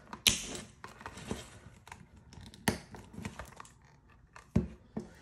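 Stiff clear plastic crinkling and rustling as a binder is handled, broken by a few sharp clicks and knocks, the loudest just after the start.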